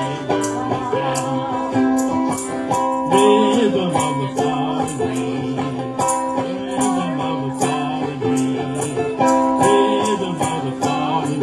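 Live ukulele band playing an instrumental passage, with a shaker rattling a steady beat about three times a second.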